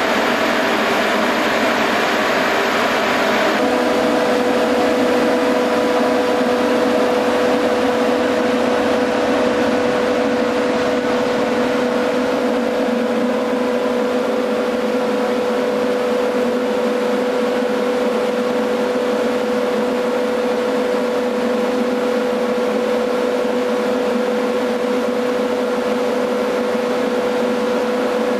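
Fog cannon running: a steady rush of air and spray from its fan and misting nozzles, with a steady hum. A few seconds in the sound changes abruptly and a steady hum comes to the fore.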